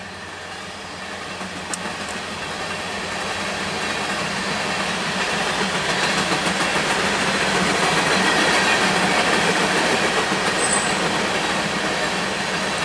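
Freight train of GREX conveyor-belt ballast cars rolling past, with wheels clattering over the rail joints. The rumble grows louder over the first half and is loudest a little past the middle.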